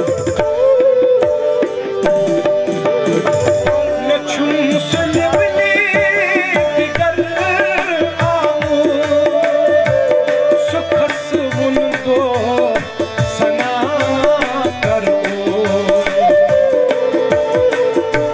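Live Kashmiri folk music: tabla drumming in a fast, steady rhythm under a held melody line.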